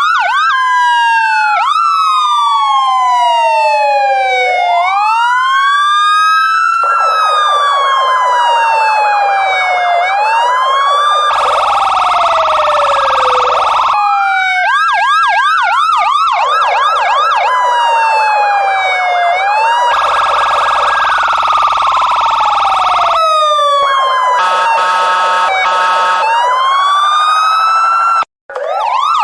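Electronic police siren cycling through its tones. It moves from a slow rising and falling wail to a fast yelp, with two stretches of a steady, buzzy horn-like blast and a short, rapid choppy tone. A brief break near the end, then the wail rises again.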